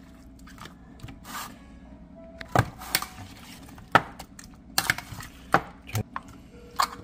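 A metal spoon knocking and scraping against a platter while seasoning is mixed through raw catfish pieces, giving sharp, irregular clicks about once a second.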